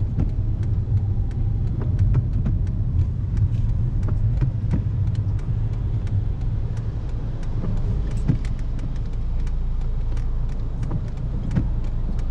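Car in motion heard from inside the cabin: steady low road and engine rumble, with many faint light ticks and clicks over it. The rumble changes slightly about seven seconds in.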